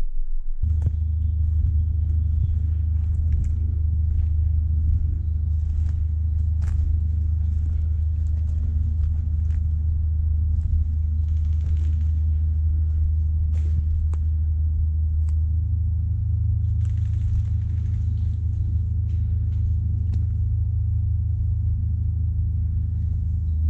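A steady low rumble that sets in abruptly just under a second in and shifts slightly in pitch about halfway through, with faint scattered clicks and rustles over it.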